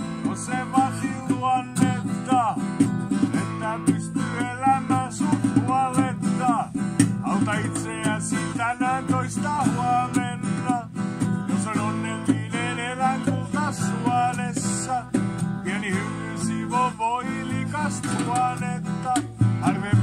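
Acoustic guitar strummed in a steady rhythm, with a second instrument playing a melody over it whose notes slide and bend in pitch.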